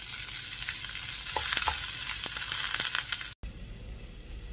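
A steel spoon stirring okra stir-fry in a hot kadai, clacking and scraping against the pan over a steady frying sizzle. The sound drops out for an instant about three and a half seconds in, and a quieter sizzle goes on.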